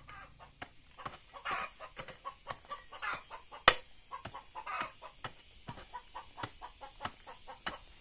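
Chickens clucking, mixed with many sharp, irregular knocks of a hoe chopping into soil and stone. The loudest knock falls about midway through.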